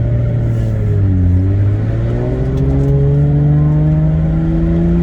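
Turbocharged Toyota Supra engine pulling hard under full throttle, its note dipping briefly about a second in and then climbing steadily in pitch as the car accelerates on a high-boost (about 41 psi) run.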